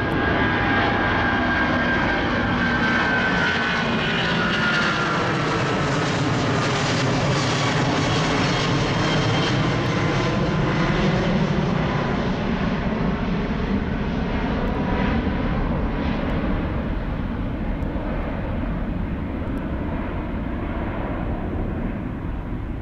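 Boeing 777-200ER's twin Rolls-Royce Trent 892 jet engines at take-off climb power, passing overhead and climbing away. A steady jet roar carries engine whines that fall in pitch over the first ten seconds or so, and the roar eases slightly toward the end.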